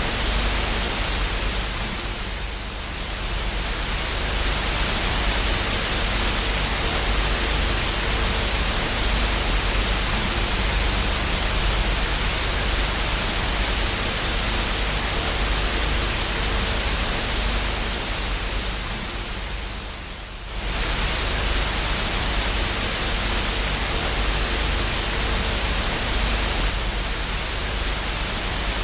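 Television static: a steady hiss of white noise with a low hum under it. It dips a little about two and a half seconds in, then sinks again before twenty seconds and cuts back in suddenly.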